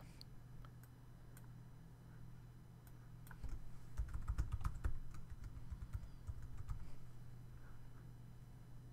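Typing on a computer keyboard: a few seconds of quick key clicks about halfway through, over a faint steady hum.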